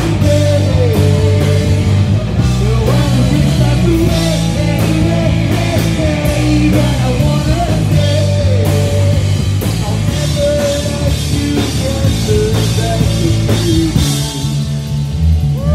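A rock band playing loud and live: a singer's vocals through the PA over pounding drums and a heavy, sustained low end.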